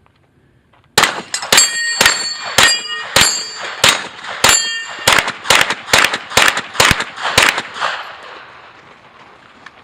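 Rapid pistol fire, about a dozen shots in six seconds, many of them followed by the ringing clang of struck steel targets.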